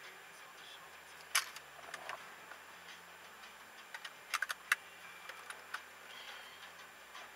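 Wet snow clumps landing on a parked car's windshield and body, heard from inside the car: scattered sharp ticks, one about a second and a half in and a quick cluster of four near the middle, over a faint steady hiss.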